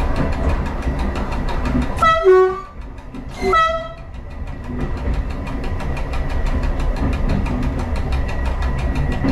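Train horn sounded twice, about two seconds in and again about a second and a half later, each a short two-note blast, over the steady running noise of the moving train.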